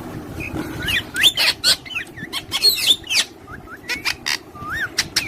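Parrots chirping and calling: a quick run of short whistled notes that slide up and down, mixed with sharp, harsh calls, getting busy about a second in.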